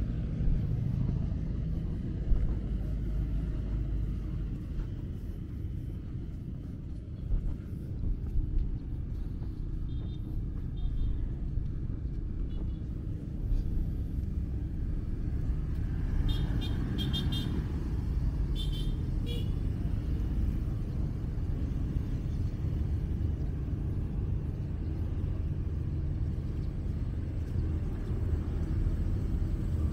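Outdoor road traffic: a steady low rumble of passing vehicles. A few clusters of short, high-pitched beeps come near the middle.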